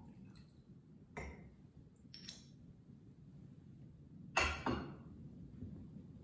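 Light clinks of a glass cruet and its glass stopper being handled, then two louder clinks in quick succession about four and a half seconds in as the glass cruet is set back down on its tray.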